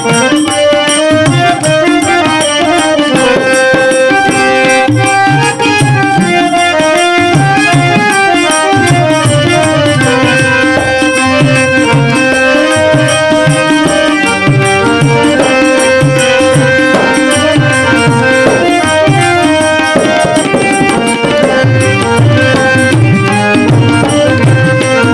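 Instrumental interlude of a devotional dhun: harmonium playing the tune in held, stepping notes over a tabla rhythm.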